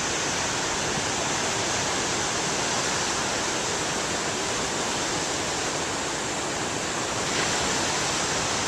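Waves breaking on the shore: a steady wash of surf, a little louder about seven seconds in.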